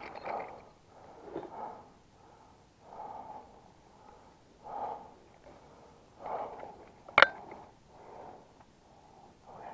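Heavy breathing of a person close to the microphone, one breath about every second and a half, after running. About seven seconds in, a single sharp, loud crack.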